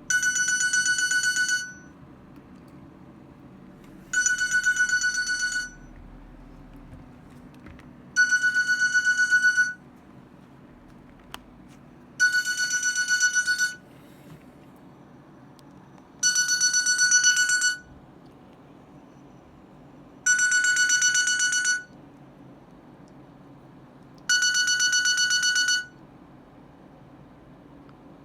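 Nokia 105 (2013) mobile phone sounding a repeating electronic alert tone through its small speaker: a high trilling beep about a second and a half long, repeating every four seconds, seven times.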